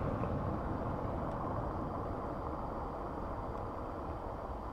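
Distant jet aircraft engine noise: a steady rumble that fades slowly.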